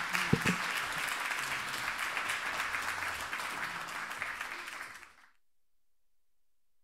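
Audience applauding, cut off suddenly about five seconds in.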